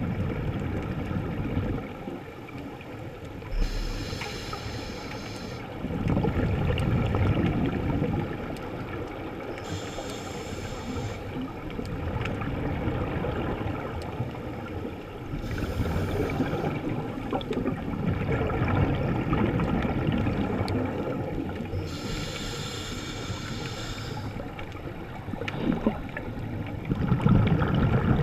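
Scuba breathing heard underwater: a regulator's hiss on each inhale followed by a rumbling, gurgling rush of exhaled bubbles, about four breath cycles.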